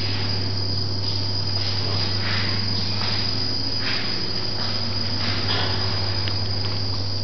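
A steady high-pitched whine over a constant low hum, with faint soft steps about once a second on a hard floor.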